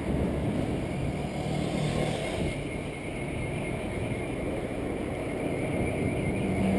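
Steady wind and road noise picked up by a handlebar-mounted camera on a bicycle riding along a city street, with passing car traffic.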